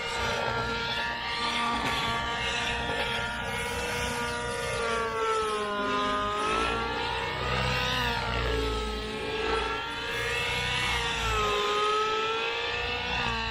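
Neo Caliber GT15 radio-control helicopter flying, its small engine and rotors making a whine that rises and falls in pitch as it manoeuvres. The owner suspects the engine is running poorly.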